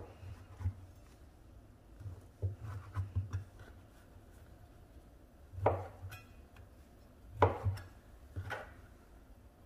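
Chef's knife chopping through a stack of corn tortillas onto a wooden cutting board: scattered knocks of the blade on the board, a quick run of them about two and a half seconds in, and three sharper strikes in the second half.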